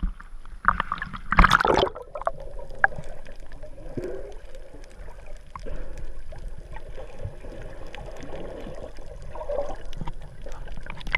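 Water gurgling and sloshing picked up by a camera underwater, with a loud rush of water about a second and a half in.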